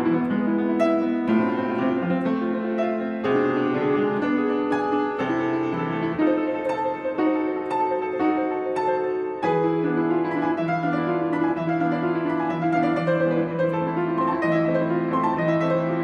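Solo piano music, a classical-style performance with a busy run of notes that settles over a steady low bass line about halfway through.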